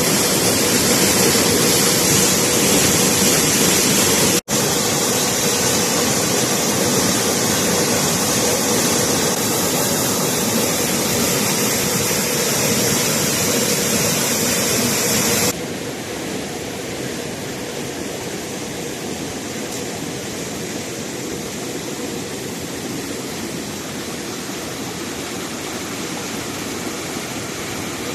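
Steady rushing of water. The sound drops out for a moment about four seconds in and turns duller, with less hiss, about fifteen seconds in.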